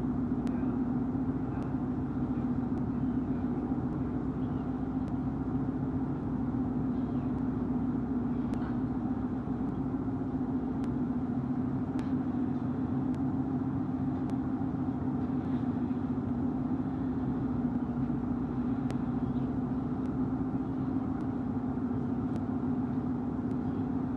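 A ferry's engines running in a steady low drone, heard from the open deck, holding one pitch throughout.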